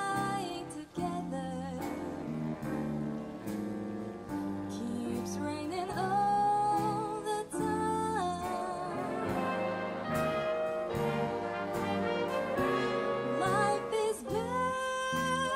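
A live big band plays a slow jazz ballad, with a brass section of trumpets and trombones and saxophones sounding over a rhythm section. A woman sings the lead, her long held notes wavering with vibrato.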